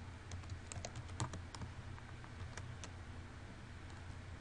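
Typing on a computer keyboard: irregular key clicks, busiest in the first second and a half and then more spread out, over a steady low hum.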